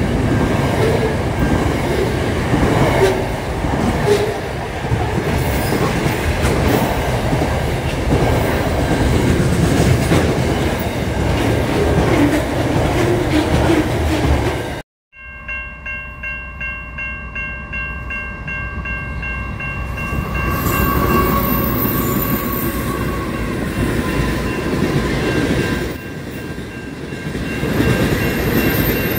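A double-stacked container freight train running past at close range. About halfway through, the sound cuts off abruptly and another train is heard passing a level crossing, with several steady high ringing tones over the train noise.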